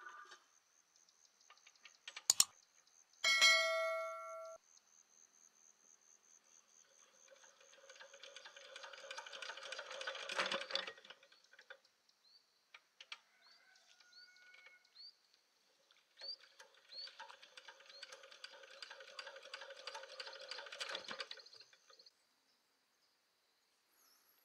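Metal workshop sounds: a sharp click, then a struck metal part ringing for about a second, followed by two spells of several seconds of dense, rapid clatter.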